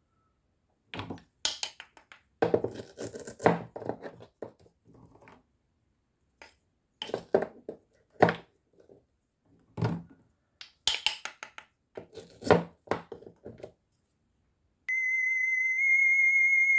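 A toy plastic knife cutting through toy fruit and vegetables on a cutting board: irregular clacks and knocks as the pieces are split and set down. Near the end a steady high electronic tone comes in.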